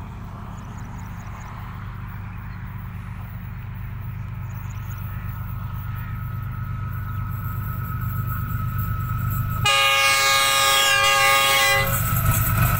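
Diesel-electric locomotive approaching, its engine drone growing steadily louder. About ten seconds in, its horn sounds one long chord-like blast lasting about two seconds. Near the end the rush of the locomotive and train arrives at close range.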